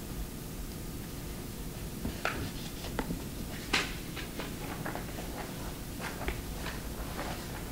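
Scattered light clicks and taps of typing and clicking on a laptop at a podium, the sharpest a little under four seconds in, over a steady low background hum.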